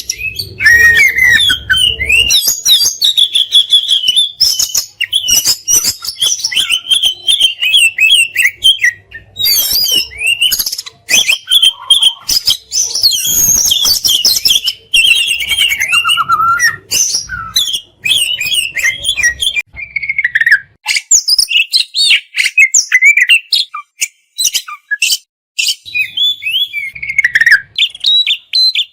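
Oriental magpie-robin (kacer) singing a long, varied song of quick whistles, chirps and sharp clipped notes, packed with fills imitating other birds and rapid bursts. There are brief pauses near the end.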